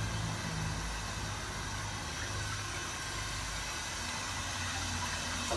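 Steady rushing hiss from a radiator pressure-test rig as air or water is let through, with a low hum beneath; it cuts off suddenly at the end.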